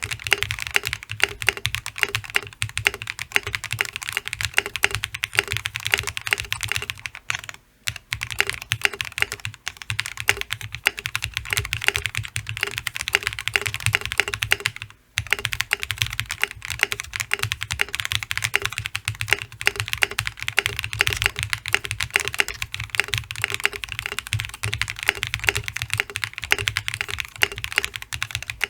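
Fast, continuous typing on a Gray Studio Space65 custom mechanical keyboard with Krytox-lubed Durock POM switches, an FR4 plate and Infinikey keycaps. It breaks off briefly twice, about a quarter and about halfway through.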